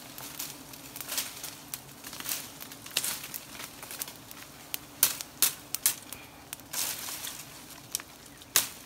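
Irregular close crackling and rustling from a honey hunter's smouldering smoke torch held under a wild honeybee comb, over a faint steady hum of the bee colony.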